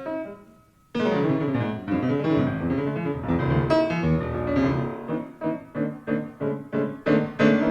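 Jazz piano and double bass duo. A phrase dies away to a brief pause about a second in, then the piano comes back in with dense chords, playing a series of sharply accented, evenly spaced strikes in the second half.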